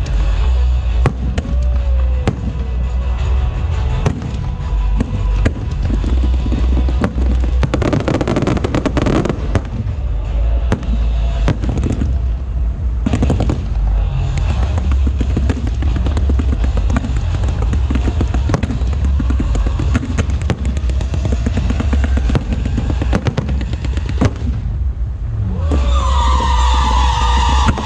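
Aerial fireworks going off in quick succession: sharp bangs and crackling over a continuous low rumble, with a thick cluster of bursts about a third of the way in and a louder, pitched stretch near the end.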